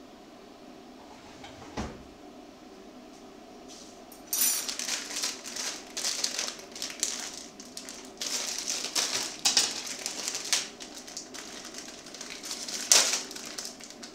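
Plastic instant-noodle packet crinkling and rustling as it is handled and torn open, starting about four seconds in and loudest near the end. A single knock comes about two seconds in.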